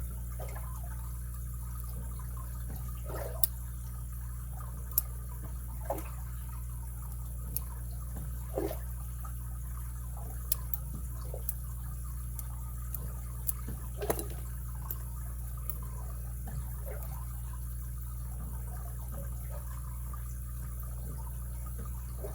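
Small, sparse clicks and light scrapes of a lock pick setting pins inside a brass pin-tumbler padlock, about a dozen over the stretch, over a steady low background hum.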